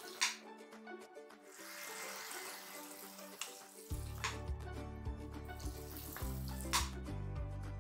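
Background music, with a deep bass part coming in about four seconds in. Under it, a faint sizzle of tomato-and-spice masala frying in a pan as it is stirred with a steel spoon.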